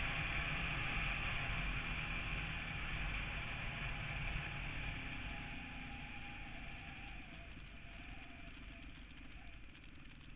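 Steady wind and road noise on a camera riding on a moving vehicle, with a faint tone that drops in pitch in the second half; the whole sound grows steadily quieter as the vehicle slows down.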